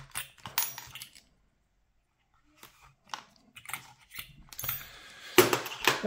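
Small metal lock picks and tensioners clinking and rattling as they are handled and slid back into a pick case: a few light clicks, a brief silent gap, then busier, louder handling near the end.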